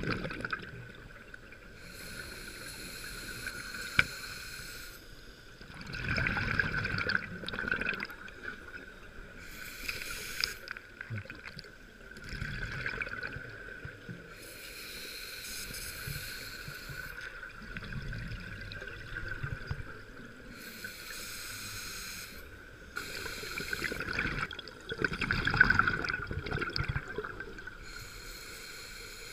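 Scuba diver breathing through a regulator underwater: slow hissing inhalations alternate with rumbling bursts of exhaled bubbles, several breaths in all, the loudest exhalations near the start, about six seconds in, and around twenty-five seconds in.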